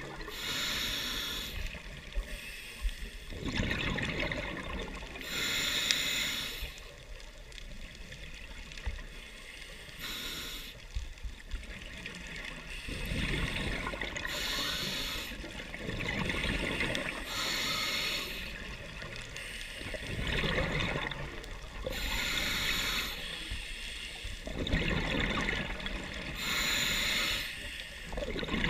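Scuba diver breathing through a regulator underwater: a hiss on each breath in and a rush of exhaled bubbles on each breath out, repeating every few seconds.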